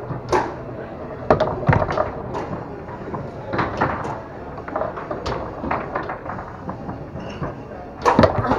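Foosball being played on a Tornado table: the ball struck by the plastic men and the rods knocking, a string of sharp, irregular clacks and knocks with a burst of hard hits about eight seconds in.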